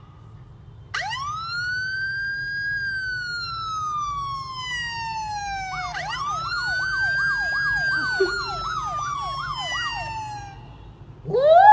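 Emergency vehicle siren wailing, sweeping quickly up and then slowly falling twice, with a faster yelping siren tone overlapping from about halfway. A louder rising wail starts near the end.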